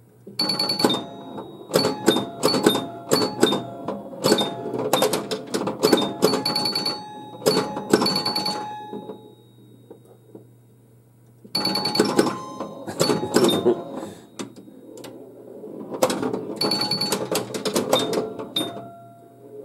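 1978 Bally Black Jack pinball machine in play: rapid clicks and knocks from the ball, bumpers and targets, with bell-like scoring tones ringing over them. It goes quieter for a couple of seconds near the middle, then the clatter and tones pick up again.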